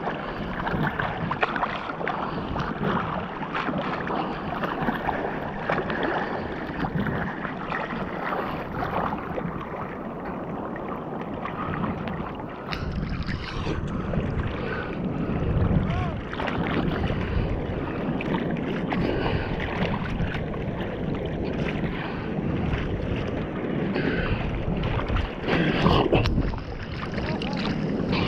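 Choppy sea water sloshing and splashing around a camera held at the surface by a swimmer, with wind on the microphone; louder splashes come about halfway through and again near the end.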